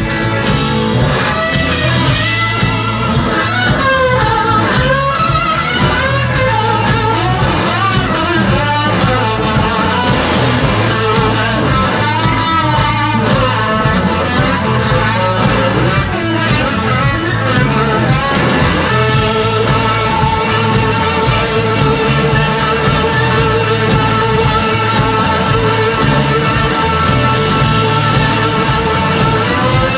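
Live rock band playing loud through a PA, led by electric guitar with gliding, bending notes over bass and drums; about two-thirds of the way in the lead gives way to long held notes.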